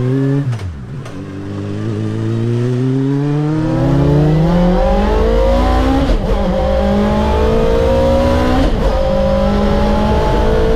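Suzuki inline-four motorcycle engine in a small van, accelerating through the gears. The revs climb in long rising sweeps and drop sharply at each upshift of its six-speed sequential gearbox: about half a second in, about six seconds in and near nine seconds in.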